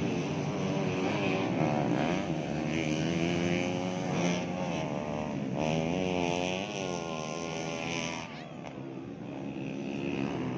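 Several motocross bikes racing on a grass track, their engines revving up and down with overlapping pitches that rise and fall as they accelerate and shift. The engine sound thins out and drops about eight seconds in.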